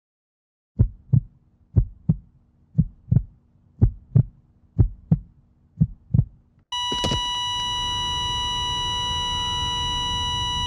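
Heartbeat sound effect: six double thumps, about one a second. About two-thirds of the way in, it is cut off by a sudden hit and a loud steady high ringing tone over a low rumble.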